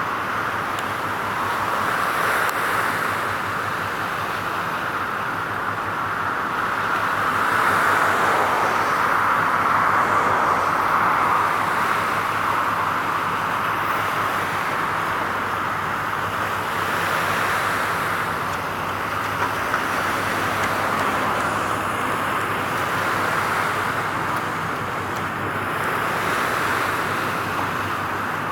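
Steady hiss of passing road traffic, swelling and easing every few seconds as vehicles go by.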